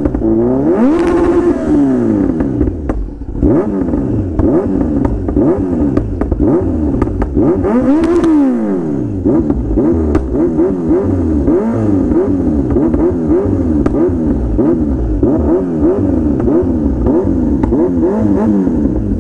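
Motorcycle engine revving up and down over and over, its pitch rising and falling in quick sweeps, with two longer climbs about a second in and about eight seconds in.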